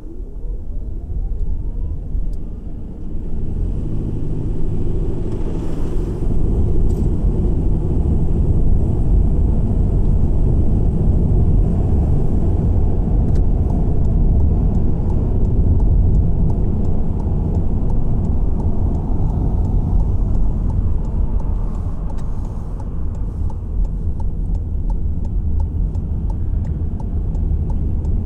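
A car driving along a road: a low rumble of road and engine noise that builds over the first few seconds as it gathers speed, then holds steady.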